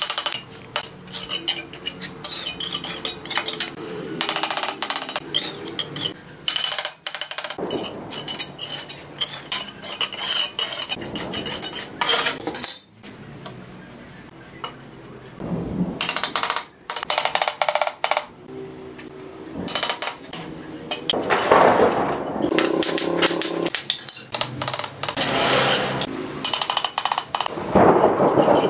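Bricklaying by hand: a steel trowel scraping and slapping wet mortar, with bricks clinking as they are set down and knocked into place with the trowel handle. Irregular sharp knocks and clinks between stretches of scraping.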